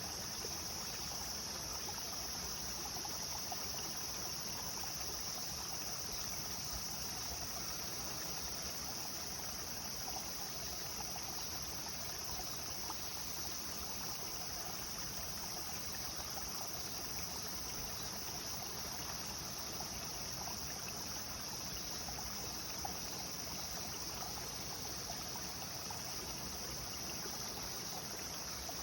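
Clear stream flowing steadily over rocks, with a steady high-pitched insect drone above the water sound.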